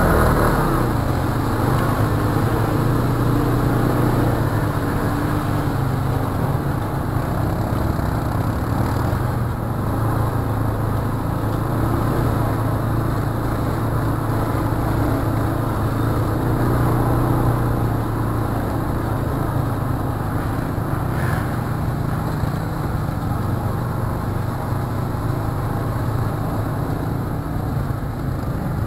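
Quad (ATV) engine running steadily on a trail ride, holding an even speed, over a constant rushing noise.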